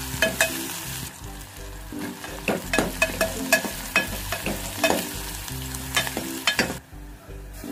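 Chopped onions with ginger, curry leaves and green chillies sizzling as they fry in oil in a metal pot, cooking toward light golden. A steel spoon stirs them, clicking and scraping against the pot many times. The stirring sound falls away shortly before the end.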